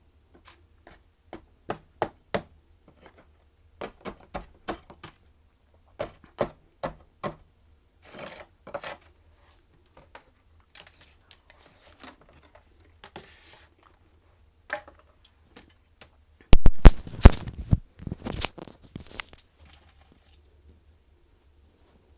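Hard chunks of freezer frost clicking and clinking against each other as they are handled, then about sixteen seconds in a loud burst of crunching lasting about three seconds as a bite of the frost is crunched.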